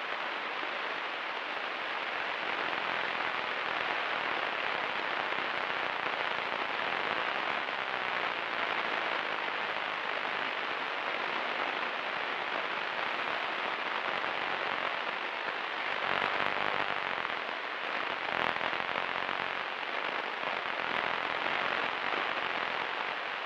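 Steady cabin noise of a Cessna 172 Skyhawk in flight: an even hiss of engine and airflow with a faint low engine hum beneath it, as the plane descends to land.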